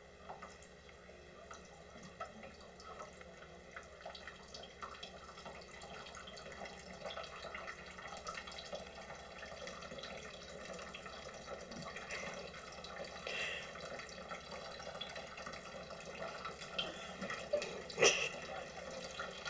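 Water trickling from a bottled-water cooler's tap into its drip tray as a cat's paw holds the tap lever up, growing slowly louder, with small drips and clicks and one sharp knock near the end.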